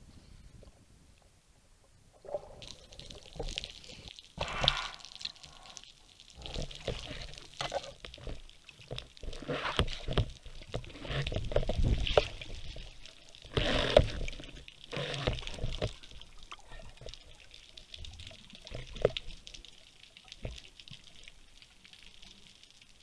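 Water gurgling and rushing around a speargun-mounted camera as the spearfisher goes under, in irregular surges that are strongest in the middle and ease off toward the end.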